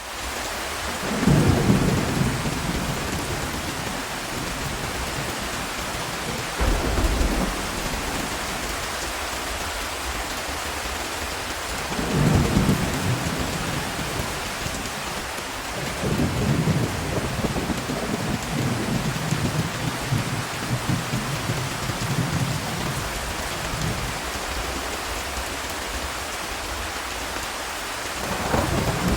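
Steady heavy rain with thunder rumbling over it: deep rolls swell up about a second in, around 7 and 12 seconds, in a longer rolling stretch in the middle, and again near the end.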